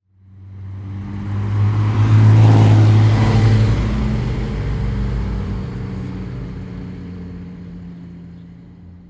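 Motorcycle engine running, swelling from nothing to its loudest about two and a half seconds in, then fading away slowly as it passes.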